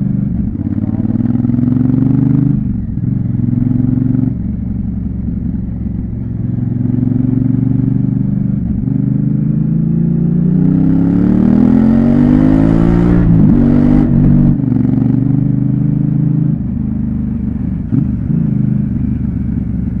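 Honda CRF1000L Africa Twin's parallel-twin engine running under way at road speed, heard from on the bike. Its pitch steps a few times early on, then rises steadily as the bike accelerates through the middle, drops sharply twice at gear changes, and settles again.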